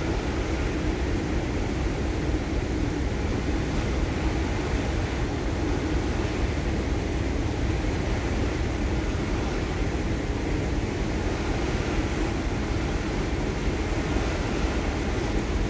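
Steady rumbling noise on the deck of a ferry under way: wind buffeting the microphone over the low drone of the ship's engines.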